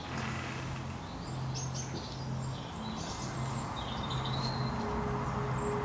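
Small birds chirping and twittering, with a low droning hum underneath that swells and fades about once a second; a steady higher tone joins about five seconds in.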